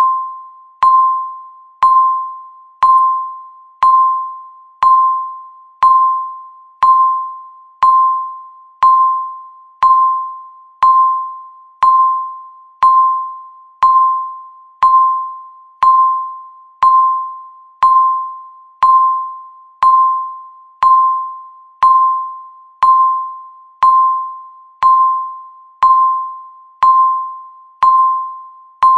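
Countdown timer beep: a single mid-pitched electronic tone once a second, each starting sharply and fading away before the next.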